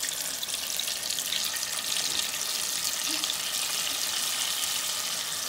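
Flour-coated fish fillets deep-frying in hot oil in a pot: a steady, bubbling sizzle that grows a little louder about two seconds in. This vigorous bubbling is the sign the oil is hot enough for frying.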